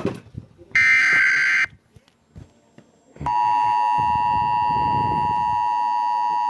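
Emergency Alert System broadcast: one shrill, warbling SAME header data burst lasting about a second, then after a short gap the steady two-tone EAS attention signal, a harsh dual-pitch tone that starts about three seconds in and holds. Together they mark the start of a new weather warning.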